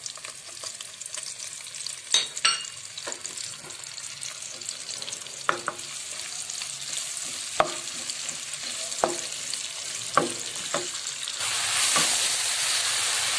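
Sliced onions sizzling in hot oil in a wok, stirred with a wooden spoon that knocks against the pan several times. Near the end the sizzle grows louder as the onion and spice masala fries.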